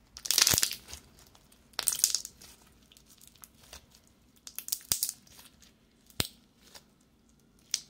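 Hands squeezing and kneading a blob of blue slime: three short bursts of wet crackling squelches, with several sharp pops in between.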